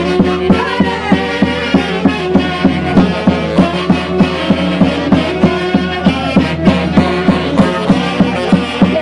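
Live band music with a fast, steady beat and sustained melody.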